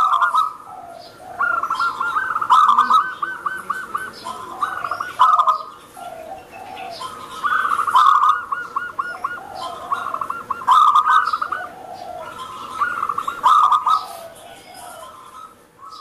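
Zebra dove singing. Its cooing song comes as bouts of rapid, trilling staccato coos, repeated every two to three seconds.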